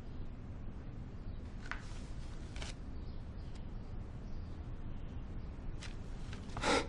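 Quiet room tone with a low steady hum, broken by a few faint brief ticks or rustles and a short louder sound near the end.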